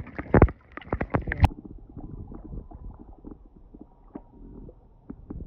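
Muffled underwater rumble and gurgle heard through a submerged camera, with sharp knocks and clicks in the first second and a half, then a quieter, steady rumble with scattered ticks.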